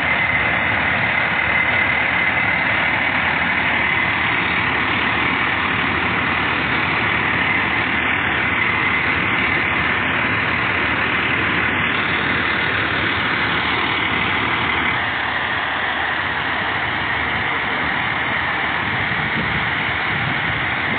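Quint fire truck's diesel engine idling steadily, with a steady high whine running through it; the level drops slightly about fifteen seconds in.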